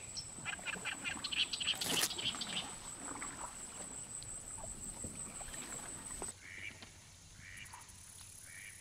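Wooden boat pushing through a dense reed bed: reed stalks rustle and scrape along the hull with many small clicks and knocks. About six seconds in the sound drops away to a quieter background with faint short calls repeating about once a second.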